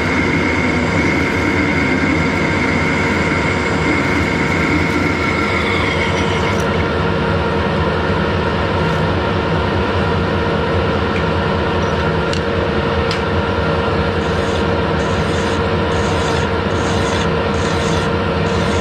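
Harrison lathe running steadily with a constant machine drone while turning a metal bush, a cutting tone dropping away about six and a half seconds in. Near the end, a hand file's rasping strokes against the spinning bush as its edges are deburred.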